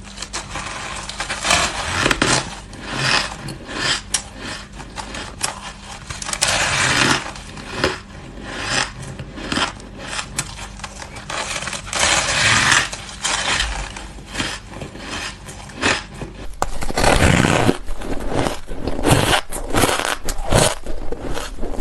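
Close-miked crunching of ice being bitten and chewed: an irregular run of crisp cracks and crunches, busier and louder in the last five seconds.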